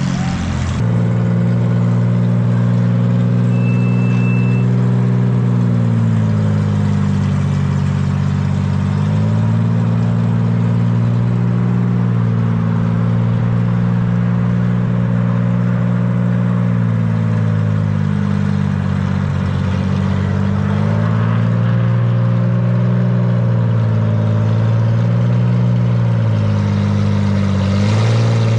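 1972 Datsun 240Z's freshly rebuilt inline-six running at idle, its speed sagging and picking up again a few times. The uneven idle is put down to its twin carburettors, which probably need adjusting to each other.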